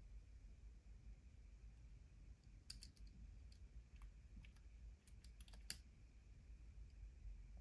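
Faint small clicks and taps of plastic parts being handled by fingers at the handlebars of a 1/12 scale plastic model motorcycle, in two short clusters, about three seconds in and again around five seconds in.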